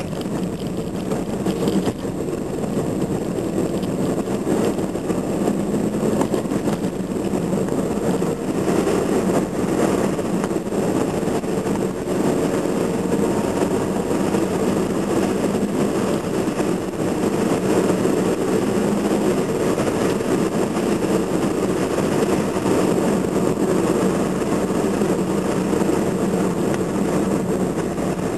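Steady running noise of a car driving along a road, heard from inside the cabin: engine hum and tyre and road rumble, with no sudden changes.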